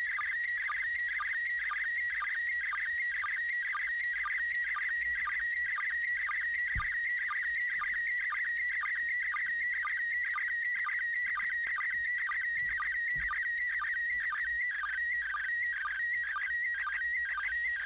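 Slow-scan TV (SSTV) image signal from the International Space Station in PD120 mode, received on a Baofeng UV-5R handheld radio: a high warbling whistle that drops to a short lower blip about twice a second. Each blip is a line sync pulse, and the warble between them carries the picture's pixel colours.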